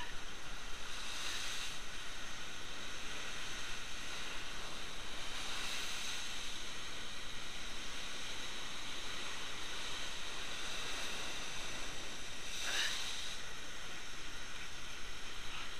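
Heavy ocean surf breaking on the rocks below: a steady rushing noise that swells three times as waves crash.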